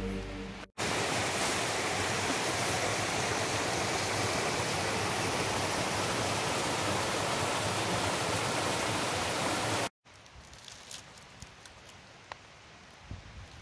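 Small mountain stream rushing steadily as it cascades over rocks, for about nine seconds, then cut off abruptly. What follows is a much quieter background with a few faint ticks.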